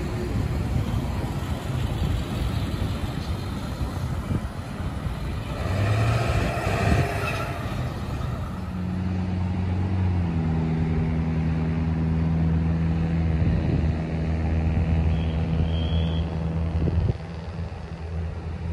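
Road traffic on a wide multi-lane road, heard over low wind rumble on the microphone. A vehicle passes about six to eight seconds in, then a steady engine hum from a large vehicle runs from about nine seconds and stops suddenly near the end.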